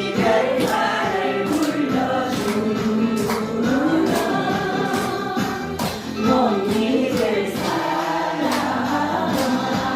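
Several voices singing together over backing music with a steady beat.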